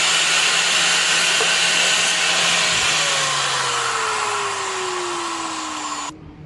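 Electric grinder grinding steel with a loud, steady hiss. Its motor pitch drops over the second half, and the grinding noise stops abruptly near the end, leaving the motor running.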